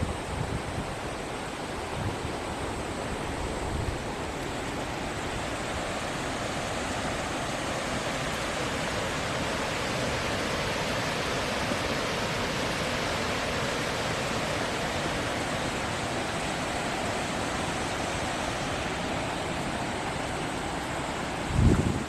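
Steady rush of flowing water from a hot-spring stream or waterfall, swelling slightly through the middle, with a short low thump near the end.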